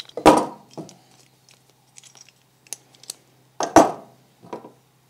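Metal parts of a brake-pipe flaring tool handled and set down on a wooden workbench: two loud knocks, one just after the start and one near the end, with lighter clicks and taps of metal between them.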